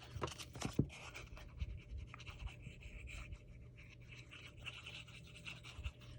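Quiet paper-craft handling at a work desk: faint scratching and rustling of paper, with many small clicks and taps of paper and tools, over a steady low hum.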